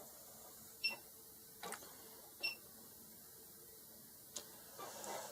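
A few light, sharp clicks of small tools or parts being handled on a workbench, spaced about a second apart, some with a brief high ring, over quiet room tone.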